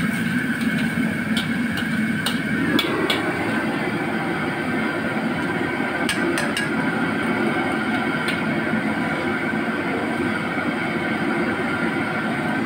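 Commercial gas wok burner running with a steady roar under a steel wok, while a metal wok spatula clinks and scrapes against the wok and a steel bowl a handful of times.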